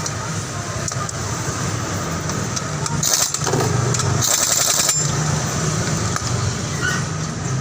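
Motor vehicle engine running steadily, with two short bursts of hissing about three and four seconds in.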